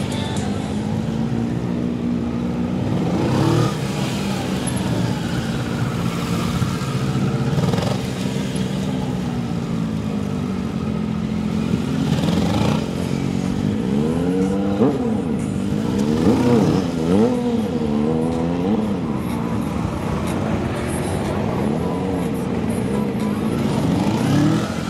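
Sport motorcycle engine being revved up and down over and over as it is ridden slowly through a tight cone course. The pitch climbs and drops repeatedly, with a quick run of short rises and falls in the second half.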